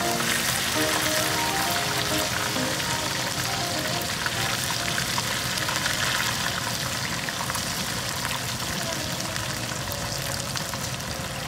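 A chili-coated grouper deep-frying in a small saucepan of hot oil: a dense, steady crackle of sizzling and popping.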